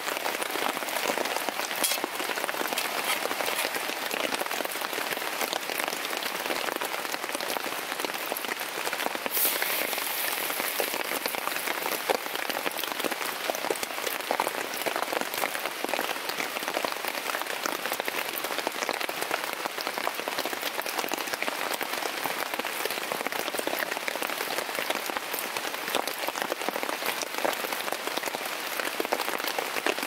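Steady rain pattering on a tent's fly sheet, heard from inside the tent as a dense, even hiss of countless small drop taps. A brief higher hiss comes in about nine seconds in.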